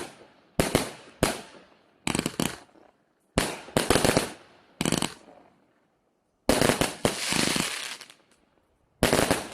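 200-shot assorted consumer fireworks cake firing: quick clusters of sharp shots and crackle with short gaps between them. About six and a half seconds in comes a longer, denser stretch of crackling that lasts over a second, then another cluster near the end.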